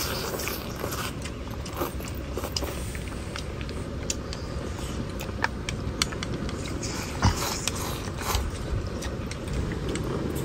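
People eating a rice meal: chewing, with scattered light clicks, over a steady low rumble.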